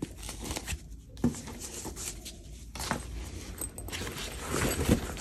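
Nylon camera sling bag being handled: fabric rustling and scraping as a padded velcro divider is fitted inside, with a couple of light knocks, about a second in and again near three seconds.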